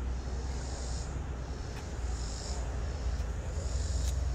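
Insects chirring high-pitched, the sound swelling and fading about three times, once every second and a half or so, over a steady low rumble.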